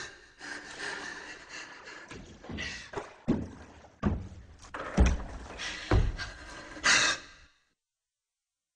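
A series of about seven heavy thuds, like blows or slams, spaced irregularly about a second apart over a faint background. They stop about a second and a half before the end.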